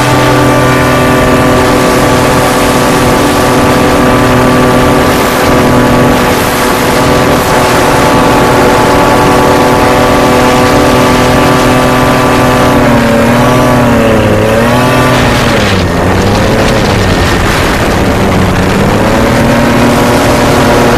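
Racing hovercraft engine running loudly at steady high revs. In the second half its revs dip and rise several times, drop lowest around the middle of that stretch, then climb back to full revs near the end.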